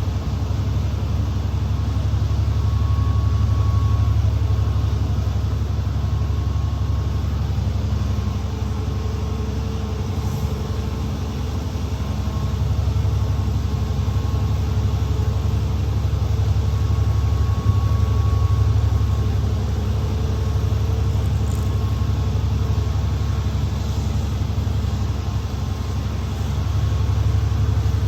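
School bus engine and road noise heard from inside the moving bus: a steady low rumble with a faint whine over it.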